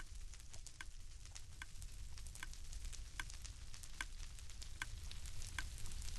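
Horse hooves clopping at a walk, faint: sharp, evenly spaced clicks over a low hiss, a stronger beat about every 0.8 s with lighter beats between.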